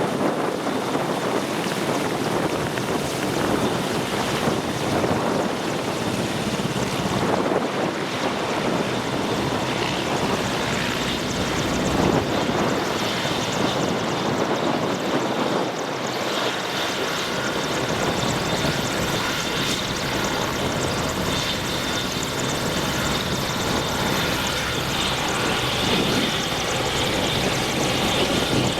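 AgustaWestland Merlin helicopter running, its rotor and turboshaft engines making a steady heavy noise with a thin high turbine whine. More steady whining tones join in about halfway through.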